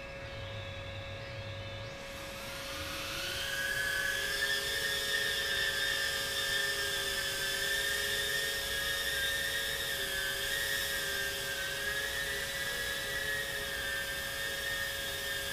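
Small FPV quadcopter's brushless motors and propellers spinning up about two seconds in, the whine rising in pitch and then holding steady as the drone takes off and flies.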